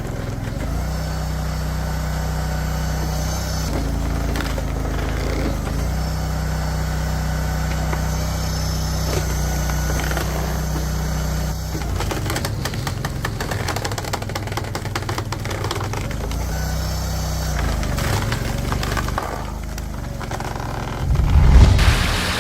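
Engine-driven hydraulic wood-processing machine running steadily, its pitch shifting a few times. A stretch of rapid clattering comes through the middle, and a heavy thump near the end.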